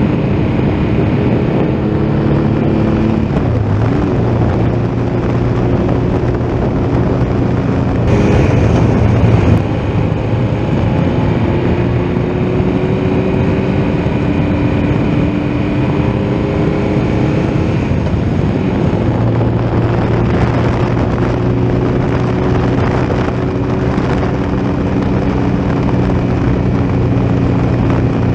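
Triumph Tiger Explorer XRx's three-cylinder engine running while the motorcycle rides along, its pitch shifting in steps a few times, under steady wind rush on the helmet or bike-mounted camera's microphone. About eight seconds in there is a louder, rougher gust of noise lasting a second or two.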